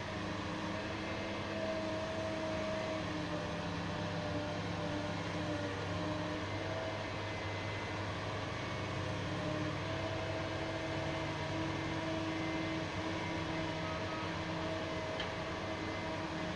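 CAT 6020B hydraulic mining shovel's diesel engine running steadily as the machine slews around, a low drone whose pitch shifts slightly as it works.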